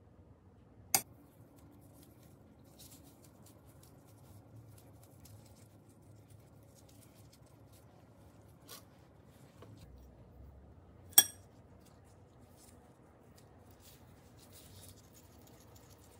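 Faint handling sounds of plastic-gloved hands filling and rolling rice-cake dough, with two sharp clinks of a small metal spoon against a ceramic bowl, one about a second in and a louder one about eleven seconds in.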